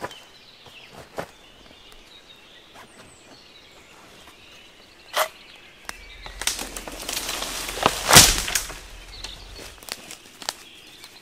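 Footsteps and scattered twig snaps on the forest floor, then a longer stretch of rustling and swishing as leafy branches and saplings are pushed through, loudest about eight seconds in.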